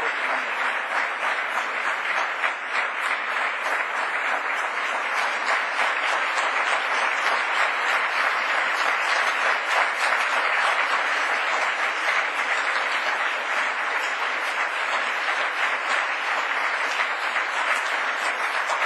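Large audience applauding, a long unbroken round of clapping at a steady level.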